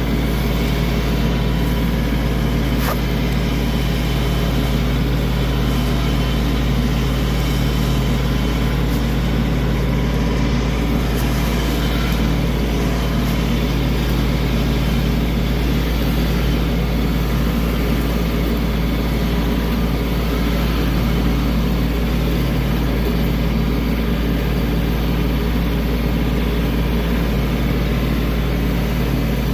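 A heavy engine running steadily at a constant speed, with a deep, even drone throughout.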